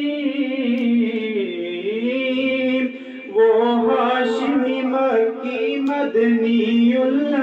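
A man singing an Urdu naat into a microphone, holding long drawn-out notes with no clear words. His voice drops out briefly about three seconds in, then he carries on with more broken sung phrases.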